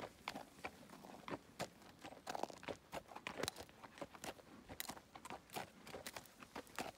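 Horse's hooves stepping on a rocky, gravelly trail: irregular crunching and clopping, several steps a second.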